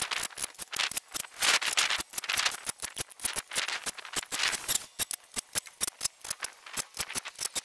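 Quick, irregular clicks and rattles from screwing together the timber frame of a shed base.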